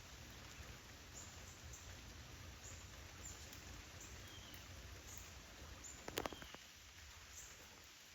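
Steady rain falling, a soft even patter, with a brief cluster of sharp knocks about six seconds in.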